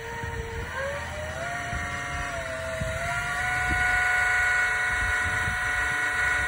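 1 kW Sanyo servo motor driving a right-angle gearbox, running up under its controller: a steady whine that rises in pitch in two steps as the speed is turned up, then holds steady and grows louder.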